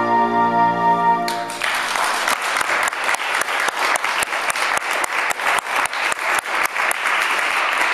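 A held chord of music ends about a second and a half in, and audience applause follows.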